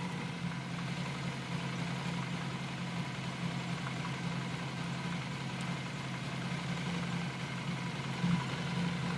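Honda Magna's V4 engine idling steadily during carburetor synchronization, as the sync screw on the right front carburetor is adjusted.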